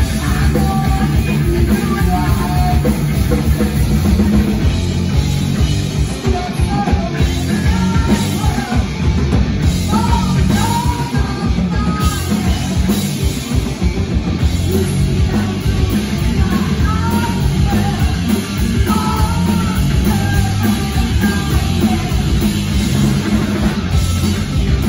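Live hard rock band playing: electric guitar, electric bass and a drum kit, with a female singer's vocals over them, loud and steady throughout.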